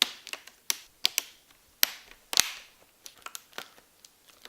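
Plastic screen bezel of a laptop lid snapping onto its clips as it is pressed home: a series of sharp, irregular plastic clicks, the loudest about two and a half seconds in, then a run of smaller ones.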